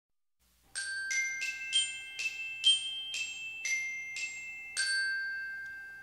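A short glockenspiel-like music jingle: about ten bright struck notes at changing pitches in a quick melody, the last note left ringing as it fades.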